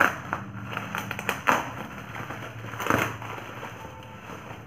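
Plastic Amazon mailer bag crinkling as it is pulled open by hand, with loud rustles at the start, about a second and a half in, and about three seconds in.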